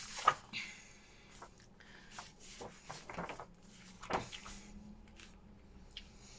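Loose paper pages from a taken-apart book being handled and turned over: soft rustling with a few sharper paper flaps and taps, the loudest just after the start and about four seconds in.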